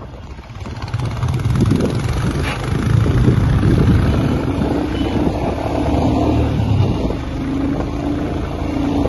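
Motorcycle engine running steadily while riding along the road at speed, heard from on the bike, with a noisy rush over the low engine hum.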